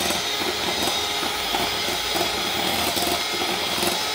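Handheld electric mixer running with a steady motor whir and high whine, its beaters creaming butter in a glass bowl.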